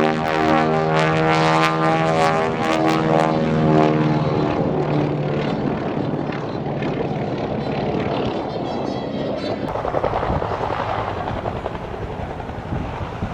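Piston-engined propeller airplane flying past, its steady engine drone fading away over the first several seconds, leaving a rushing noise.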